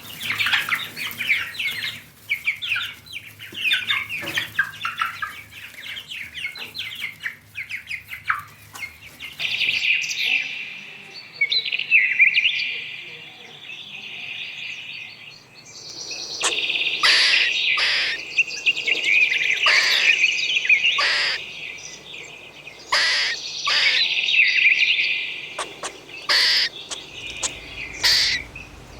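Small birds chirping and singing in rapid high calls. The background changes abruptly about ten seconds in and again near sixteen seconds, after which a string of sharp clicks cuts through the calls.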